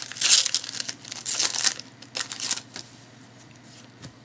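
Plastic wrapper of a trading-card pack crinkling and tearing in quick bursts as it is ripped open and handled; the crackling stops a little under three seconds in.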